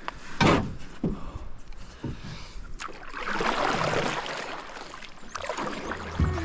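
Knocks and bumps on a small boat, with one sharp thump about half a second in, then a couple of seconds of water sloshing and washing.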